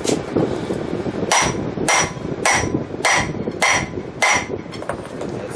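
A hammer strikes the heads of steel bolts threaded partway into a rusted front hub and bearing assembly, to drive it out of a Chevy K2500's steering knuckle. After a light knock at the start come six evenly spaced blows about 0.6 s apart, from about a second in, each with a brief metallic ring.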